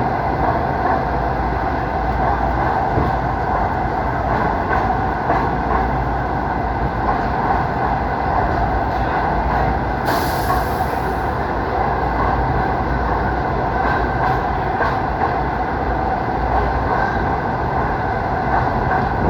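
A passenger train running steadily over a bridge, heard from on board, with a continuous rumble of wheels on the rails. A brief hiss comes about ten seconds in.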